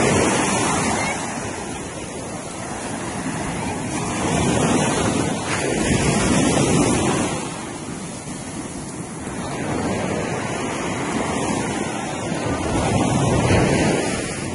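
Ocean surf breaking and washing up the shore, swelling and easing every few seconds, with wind on the microphone.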